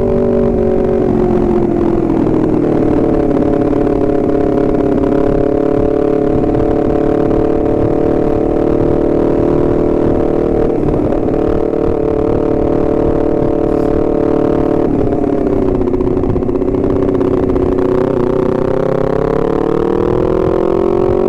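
Honda CBR250RR parallel-twin engine running under way. Its revs drop over the first few seconds, hold steady, dip briefly about two-thirds of the way through, then climb again near the end.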